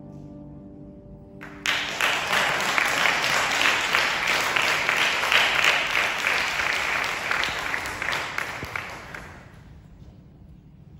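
The aria's final chord fades, then an audience bursts into applause a little under two seconds in. The clapping holds steady and dies away near the end.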